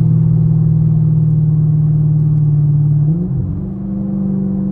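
Chevrolet Camaro SS's straight-piped V8 droning steadily at highway cruise, heard from inside the cabin. About three seconds in, the sound dips briefly, then the note steps up higher and holds there.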